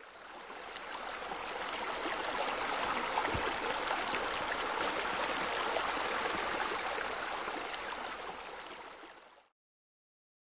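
Steady running, splashing water from the pool's bubbler jet on the shallow ledge. It fades in, holds, and fades away about a second before the end.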